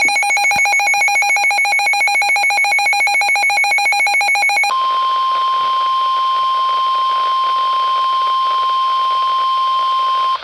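NOAA Weather Radio alert: a fast, evenly pulsing electronic alarm beep for about four and a half seconds, then the steady 1050 Hz weather-radio attention tone, which cuts off suddenly at the end. It signals that a severe thunderstorm warning is about to be read.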